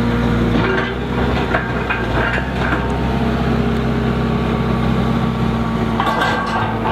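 A skid steer's engine running steadily under working load, with scattered clanks and rattles as the skeleton bucket works; a louder burst of clattering about six seconds in.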